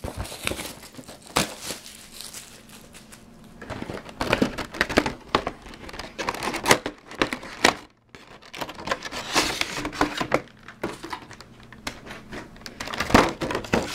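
A trading-card collector box being opened by hand: the cardboard and plastic packaging crinkle, scrape and tear in irregular bursts, with a brief pause about eight seconds in.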